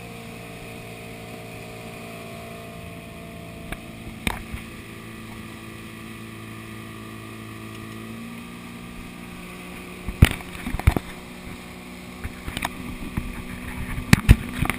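Towboat's engine running steadily under way, with a wash of water and wind noise. Several sharp knocks and rattles from the camera being handled on its mount, one about four seconds in, two around ten seconds and a cluster near the end, are the loudest sounds.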